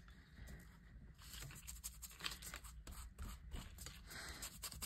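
Faint scratchy rubbing and scraping of an ink-blending tool and hands working over paper as distress ink is worked in, with a steady low hum underneath.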